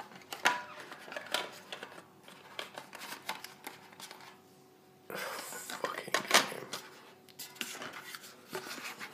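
Handling noise from a Dunlop Cry Baby Mini wah pedal and its cardboard box being moved about: a scatter of light, irregular clicks and knocks, with a rustling stretch about five seconds in.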